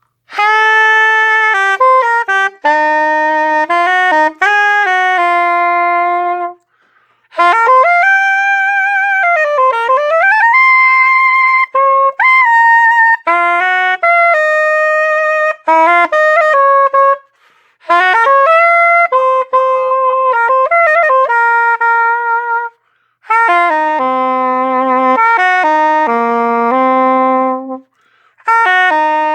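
Soprano saxophone played solo through a Missing Link mouthpiece with a .066 tip and a No. 3 reed, on a Selmer Series II: short melodic phrases with brief breaths between them, including a deep bend down and back up about ten seconds in.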